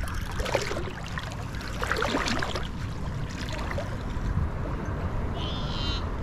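Shallow water sloshing and splashing around a wading angler, with a steady wind rumble on the microphone. A brief high chirp sounds near the end.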